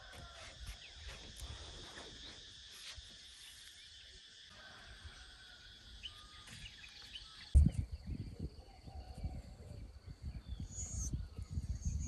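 A steady chorus of forest insects, an even high-pitched drone. About two-thirds of the way through it switches abruptly to a slightly higher drone, with a sharp thump at the change, followed by irregular low thuds and rumbling.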